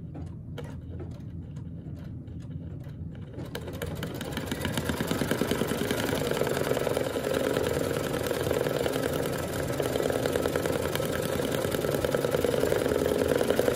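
Brother Luminaire embroidery machine stitching out an embroidery design: separate needle strokes at first, then a fast, even run of stitches about four seconds in that grows louder and holds until it stops at the end.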